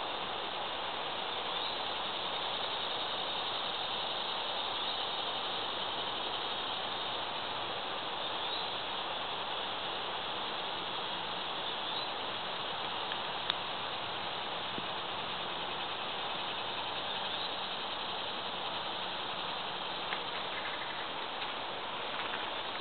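Steady woodland ambience: a continuous high-pitched insect chorus, with a faint short chirp every few seconds and a single click about thirteen seconds in.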